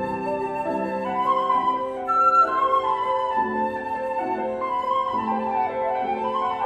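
Concert flute playing a melody in long held notes over grand piano accompaniment.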